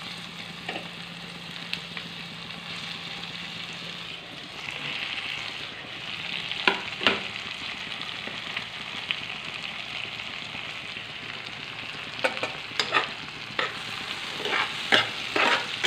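Chopped raw mango, green chillies and curry leaves sizzling in hot oil in a frying pan with onion and tomato; the hiss grows louder about four or five seconds in as they go into the pan. A few sharp clacks come around seven seconds, and a spatula clacks and scrapes against the pan near the end as it is stirred.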